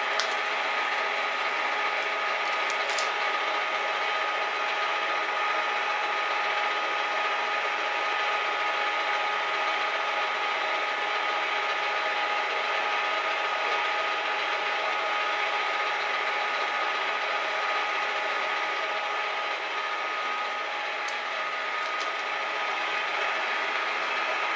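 Metal shaper running with a steady mechanical drone of its motor and gear drive, holding several fixed tones, with a few faint light clicks.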